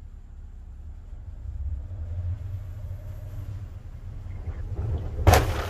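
A Jeep's engine rumbling low as it drives up to a wall of stacked snow blocks, then a sudden loud crunch about five seconds in as its front end rams through the blocks.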